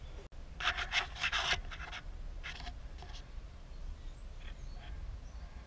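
Short scraping and rubbing handling noises: a quick run of them about a second in, then a few fainter ones spaced out after.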